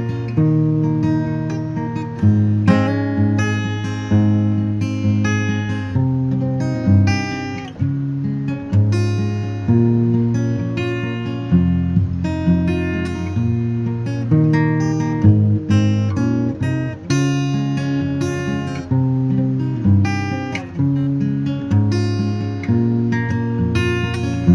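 Background music: acoustic guitar strummed and picked, with a steady rhythm and changing chords.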